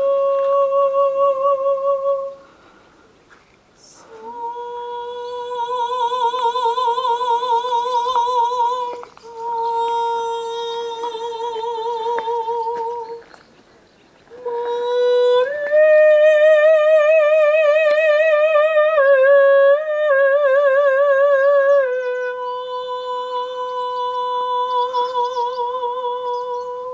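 A high voice humming a slow, wordless melody of long held notes with wide vibrato, in several phrases with short breaks between them. The fullest phrase comes about halfway through and steps up and down in pitch.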